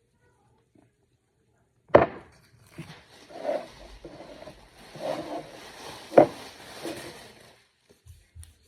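Two sharp knocks of items being set down on a hard surface, about four seconds apart, with scraping and rustling of handling between them.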